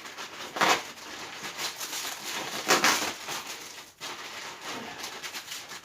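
Thick plastic wrapping on a new mattress rustling and crinkling as it is handled and pulled at, with two louder rustles, one about a second in and one near the middle.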